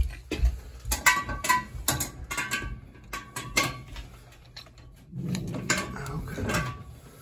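Metal hand tools clinking and knocking against old metal pipe fittings as a wrench works a fitting, with a quick run of sharp clicks in the first few seconds.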